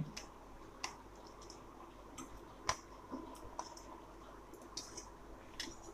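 A few faint, scattered clicks of stainless steel kitchenware, a plate knocking against the rim of a steel bowl, as paneer cubes are set by hand into a bowl of thick marinade. The loudest click comes a little before the middle.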